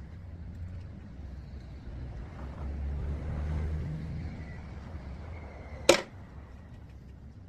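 Low, steady vehicle rumble that swells and fades in the middle, with one sharp click about six seconds in.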